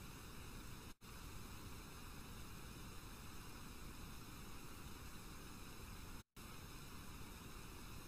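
Low, steady hiss and hum of the recording's background noise. It drops out to silence briefly twice, about a second in and again about six seconds in.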